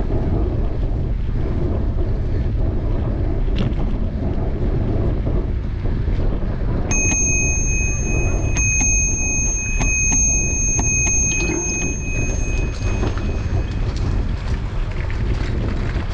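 Bicycle bell rung in four quick double dings starting about seven seconds in, its clear tone ringing on for a few seconds after. Underneath, steady wind rumble on the microphone of a camera riding on a moving bicycle.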